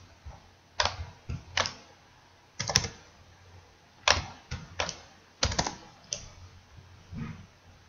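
Computer keyboard typing: a dozen or so separate key presses in small, uneven groups with short pauses between them.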